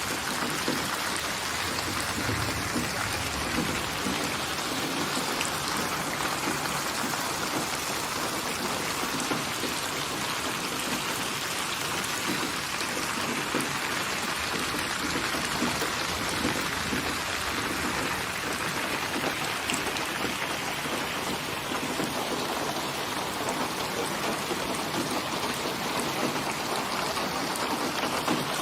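Steady rainfall: an even hiss of rain with fine drops pattering on a surface.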